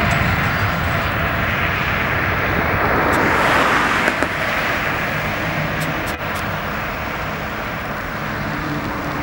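Jet engine noise of a Boeing 787 Dreamliner at takeoff power as it climbs away: a steady noise that peaks a few seconds in, then slowly fades.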